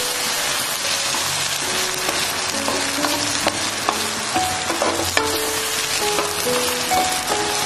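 Egg and houttuynia (fish mint) mixture sizzling in hot oil in a wok, with a few sharp clicks of the spatula against the pan.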